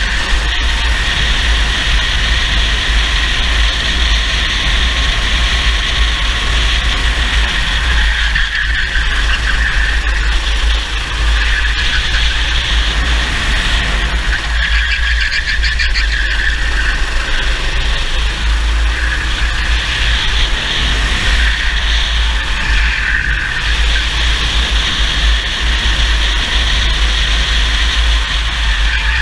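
Racing kart engine heard from an onboard camera at full race pace, its pitch dipping and climbing again twice, around 8 and 15 seconds in, with wind rumbling on the microphone.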